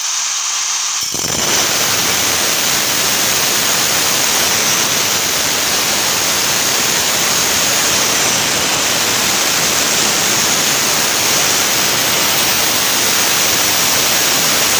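Angle grinder with a repaired armature, first spinning free with a high whine, then from about a second in cutting into stone with a loud, steady grinding noise. The grinder keeps its speed under the load: the repair has given the armature enough power to cut stone.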